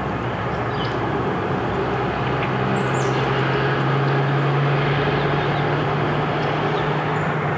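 Distant engine droning over a steady rushing background, its low hum coming in about two seconds in and holding steady.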